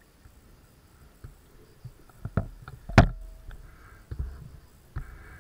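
A series of sharp knocks and bumps, the loudest about three seconds in, with low rumbling after it.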